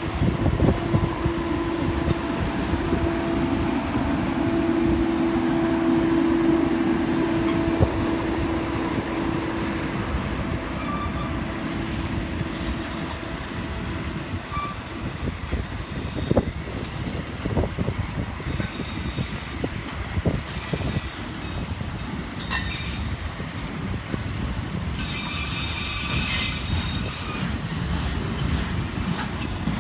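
Norfolk Southern maintenance-of-way camp cars rolling past close by: continuous wheel-on-rail rumble and clatter. A steady lower whine runs through the first ten seconds or so, and high-pitched wheel squeal comes twice in the second half, the louder one about 25 seconds in.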